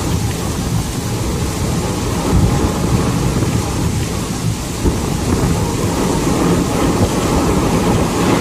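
Heavy wind-driven rain pouring down in a storm, a loud steady rush with a deep low rumble underneath.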